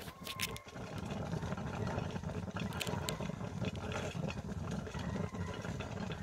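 Stainless stovetop percolator perking over a stick fire: a steady low bubbling gurgle as the water boils up through the basket, with scattered faint clicks.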